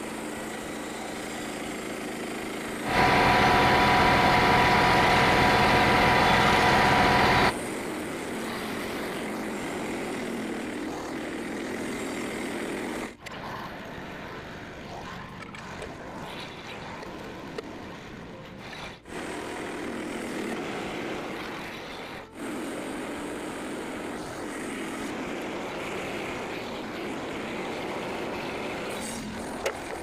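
Frontier OS27 portable bandsaw mill running, its small gasoline engine going steadily as the band blade saws white pine into boards. A much louder, higher-pitched stretch comes a few seconds in, and the sound drops out abruptly three times later on.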